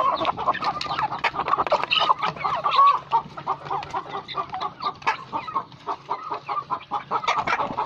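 Chickens clucking and chirping while they feed, with many quick, irregular taps of beaks pecking feed from a wooden trough.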